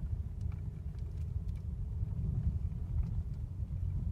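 Road and tyre rumble inside the cabin of a Mercedes-Benz W212 driving over bumps, with a few faint knocks from the bumps. No squeak or creak from the dashboard: the squeak at the windscreen cowl has been cured with WD-40.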